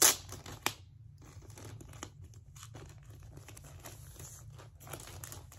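Plastic packaging of a rolled diamond-painting canvas being handled and torn open: a loud rip at the start and another just under a second in, then steady small crinkling.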